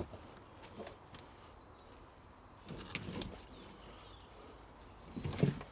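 A few short knocks and scrapes, a cluster about three seconds in and another near the end, over faint bird calls.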